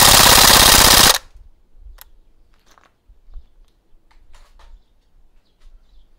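VFC MP5A5 airsoft gun firing a full-auto burst, a rapid, even stream of shots that cuts off sharply about a second in. A few faint clicks and knocks follow.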